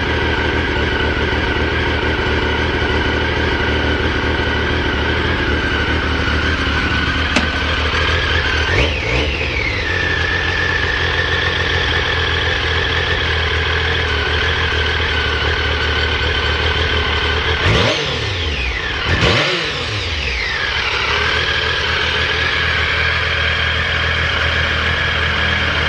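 Triumph Speed Triple three-cylinder engine idling steadily, blipped three times: once about a third of the way in, then twice in quick succession past the middle. The seller describes the idle as stable, with no abnormal noises.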